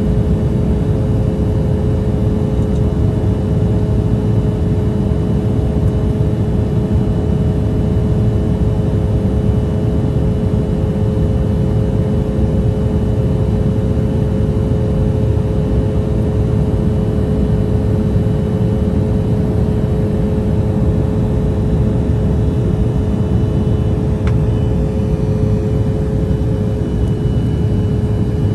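Cabin noise of an Embraer E175 in the climb: its wing-mounted GE CF34 turbofans running steadily under a deep rush of airflow, with a steady hum of several tones on top.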